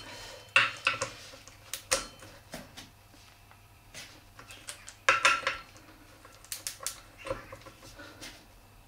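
Torque wrench's ratchet clicking in short runs and its socket clinking on the rear sprocket bolts as they are snugged down in turn, still below the wrench's 55 N·m setting so it has not yet clicked off.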